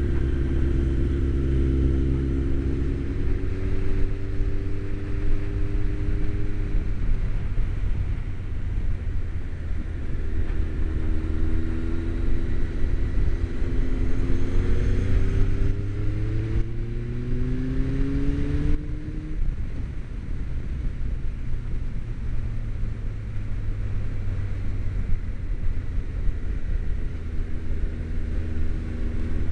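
Motorcycle engine heard from inside the rider's helmet over a steady low wind and road rumble. Past the middle the engine note rises twice as the bike accelerates, each rise ending in a gear change, then it settles to a steady cruise.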